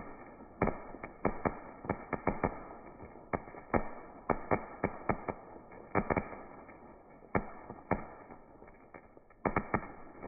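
Ground fountain firework spraying sparks with a steady hiss, broken by irregular sharp crackling pops, two or three a second.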